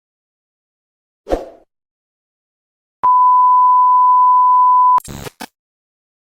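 A steady electronic beep on one pitch, held for about two seconds. It comes after a short dull thump and is cut off by a brief burst of harsh noise.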